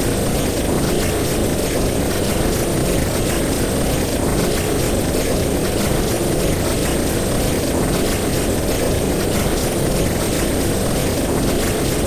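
Designed 'interstellar' space-travel sound effect: a loud, unchanging rumble of noise, heaviest in the low range, with a faint thin high whine held above it, meant to evoke rushing through the cosmos at high speed.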